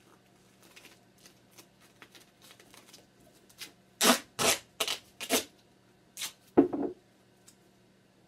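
Grey duct tape being handled with faint rustling, then pulled off the roll in a quick run of short loud rips about halfway through, with one more rip a little later.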